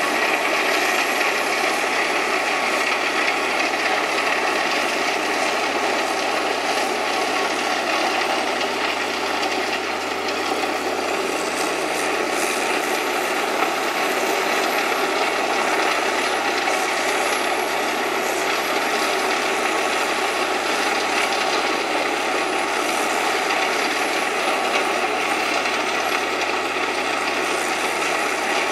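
Self-propelled wood chipper running: a loud, steady, dense mechanical din from its engine and chipping unit, with a faint high whine that drifts up and down.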